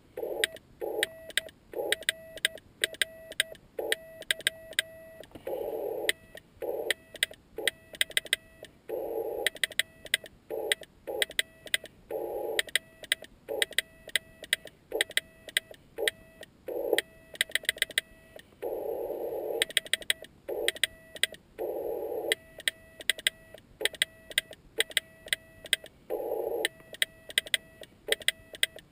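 Morse code sent by hand on a homemade key built from bicycle parts: a steady tone of about 650 Hz keyed on and off in dots and dashes, with a sharp click of the key contacts at each element and short bursts of hiss between them.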